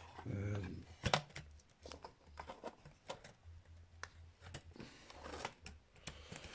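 Scattered sharp clicks and small handling noises of hand cutters being worked on a bit of cable or solder that they fail to cut through, over a low steady hum.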